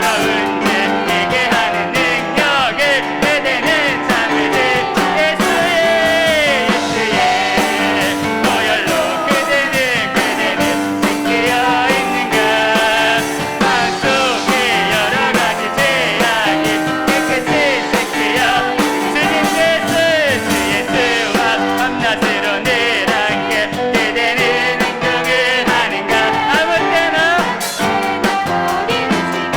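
Live praise band playing a worship song: vocalists singing over piano and a drum kit with a steady beat.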